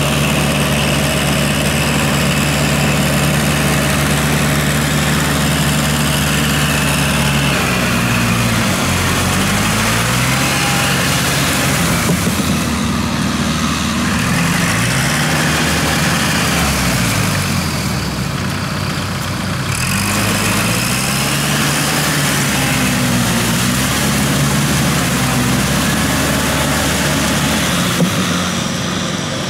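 Tractor diesel engine running while working a flooded rice paddy. The engine note holds steady at first; about seven seconds in, it changes and its pitch rises and falls unevenly for the rest of the time.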